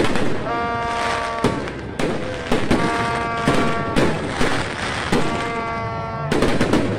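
Aerial fireworks bursting overhead in frequent sharp bangs, while a buzzing horn blares again and again in blasts of about a second each over the noise of a crowd.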